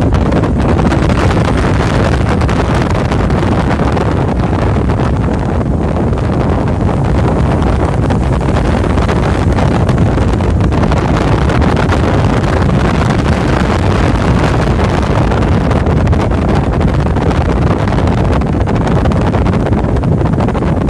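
Steady rush of wind on the microphone over the road noise of a car driving along.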